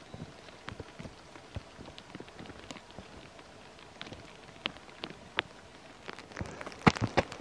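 Falling snow pattering as scattered, irregular light ticks, with a few louder sharp clicks near the end.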